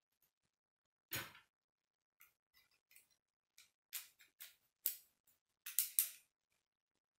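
Plastic K'nex rods and connectors clicking and snapping together as they are fitted by hand: a short clatter about a second in, then a run of sharp clicks, the loudest near the end.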